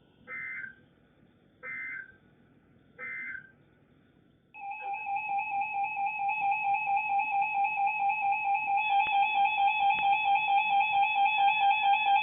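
Three short bursts of Emergency Alert System digital data tones, the SAME end-of-message signal, then, about four and a half seconds in, a loud, steady EAS attention tone that holds with a slight pulsing.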